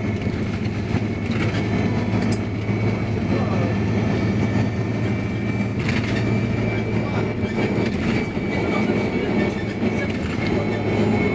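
Interior of an Iveco Urbanway 18 CNG articulated bus under way: a steady low engine hum and road rumble, with a thin steady high whine and a few brief rattles.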